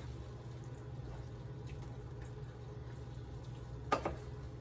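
Chicken and noodles in sauce cooking softly in a skillet, bubbling low and steady, with a wooden spatula knocking against the pan once near the end.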